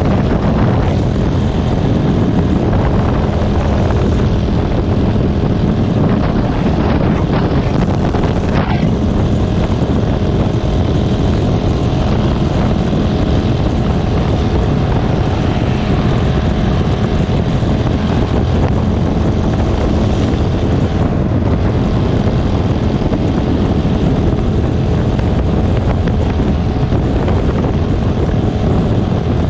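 Steady, loud drone of a moving vehicle, an engine hum under a rushing noise, unchanging throughout.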